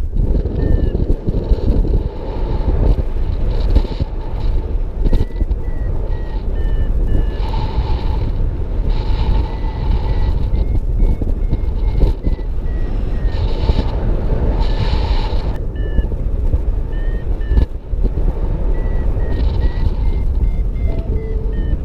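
Paragliding variometer beeping in quick short beeps whose pitch drifts up and down, the climb tone that signals rising air, over heavy wind rushing on the microphone.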